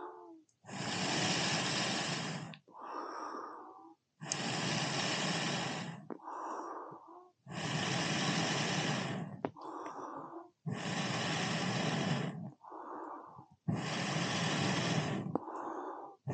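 A man blowing hard on a smouldering campfire, five long breaths of about two seconds each with quick gasping in-breaths between them. The fire ring has no air holes, so the fire only burns while he blows on it.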